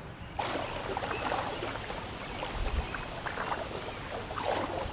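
Shallow creek water sloshing and splashing around wading legs: a steady wash with many small splashes.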